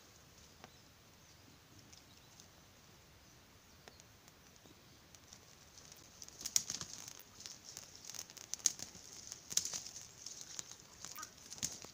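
Dry grass and twigs crackling and popping as a small campfire catches. It is faint at first, and the sharp crackles come thick from about halfway through.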